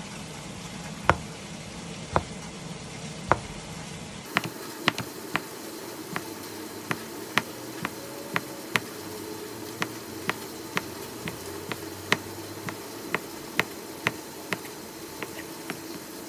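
Sharp knocks over a steady low hum: three spaced about a second apart, then after about four seconds a quicker, irregular run of roughly two a second.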